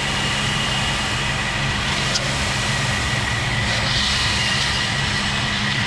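Pressure-washer engine running steadily at half speed while SH (sodium hypochlorite) solution is sprayed, with a short burst of higher hiss about four seconds in.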